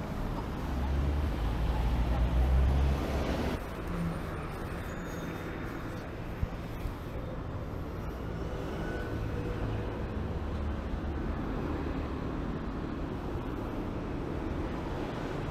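Road traffic on a city street: a vehicle passes close by, loudest in the first few seconds, then the sound drops suddenly to a steadier traffic noise with cars going by. A single short click about six and a half seconds in.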